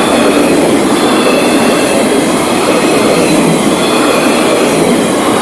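Freight cars of a passing freight train rolling by close up: a steady, loud rumble and rattle of steel wheels on the rails, with faint wavering squeals from the wheels.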